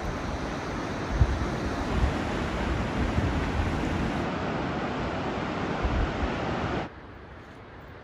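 Surf and shallow water rushing at a sandy creek mouth, with wind gusting on the microphone. The rush stops abruptly about seven seconds in, leaving a much quieter background.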